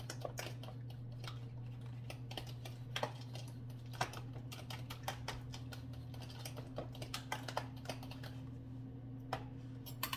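Irregular light clicks and taps of hands and utensils working in plastic food containers while coating onion rings in egg and breadcrumbs, over the steady low hum of an air fryer preheating.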